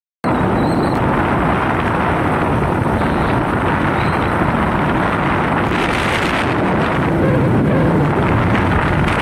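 Wind rushing over the microphone on a moving motorcycle, mixed with the bike's running and road noise. It cuts in abruptly a moment in and then stays steady.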